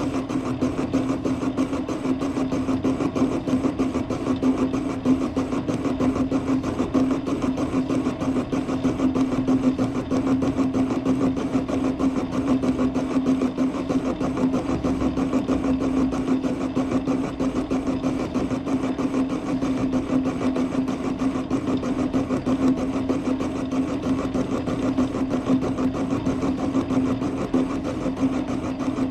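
Metal lathe running steadily with a constant hum while a parting tool cuts off the workpiece in an interrupted cut.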